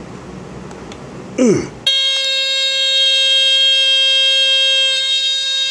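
Oster 157-08A smoke alarm's horn sounding a steady tone for almost four seconds as its test button is pushed hard, then cutting off suddenly. The alarm works, but the test button needs a hard push. Just before the horn starts there is a brief, loud sound falling in pitch.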